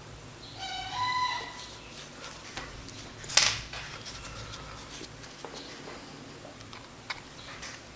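A short pitched animal call lasting under a second, about a second in, then a sharp click a couple of seconds later, the loudest sound, with a few faint ticks after it.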